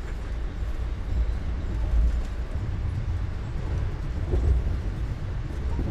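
Interior of a moving train carriage: a steady low rumble from the running gear, swelling and easing, with a few faint knocks and rattles.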